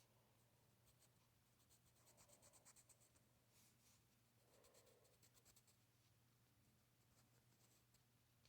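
Faint scratching of quick drawing strokes, in runs of rapid back-and-forth strokes, over a faint steady low hum.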